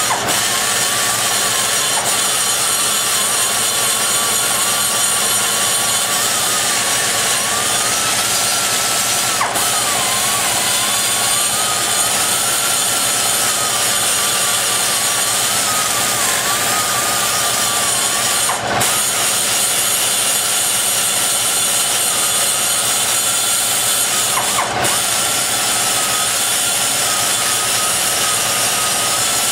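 Die grinder running continuously with its burr cutting into the aluminum exhaust port of a small-block Chevy cylinder head, rough-shaping the port. A high whine over a hiss that wavers in pitch as the cutter bites, dipping briefly three times.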